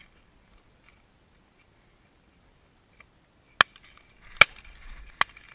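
Three sharp knocks a little under a second apart, after a few seconds of near quiet.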